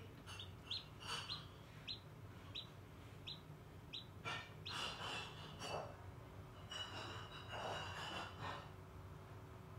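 Chicken chick peeping during hatching in an incubator: short high peeps at a steady pace, with louder, longer cheeps about halfway through and again later, over the low hum of the incubator.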